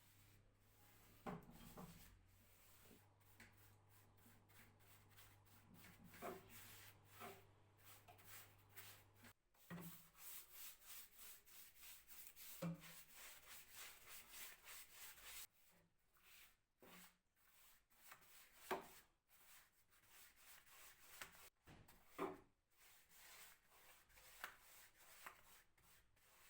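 Quiet hand rubbing on wood, short back-and-forth strokes such as sandpaper or a cloth worked over a wooden surface, with a few light knocks. A faint steady hum sounds under the first third and stops.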